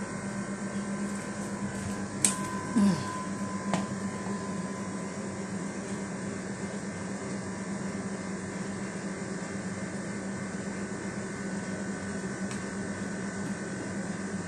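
Steady electrical appliance hum in a small room: a constant low drone with a few fixed tones. Two faint clicks come about two and a half and four seconds in.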